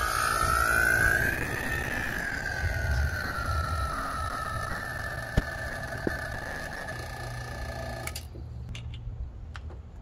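Electric A/C vacuum pump running while pulling a vacuum on the car's air-conditioning system through the low-side hose, a steady whining motor sound. Its pitch rises during the first second or so, then eases down and holds steady, and the sound stops abruptly about eight seconds in.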